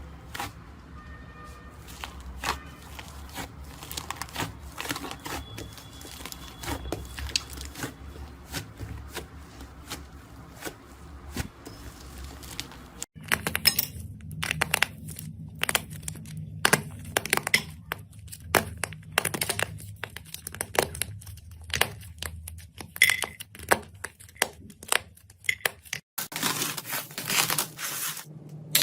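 Slime being squeezed, poked and stretched by hand, giving a dense run of crackles, pops and small snaps. The snaps turn sharper and louder about halfway through.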